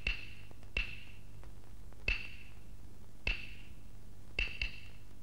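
Six sharp strikes on a wooden clapper, each a hard click with a short, high ringing tone. They come one at a time about a second apart, ending with a quick pair.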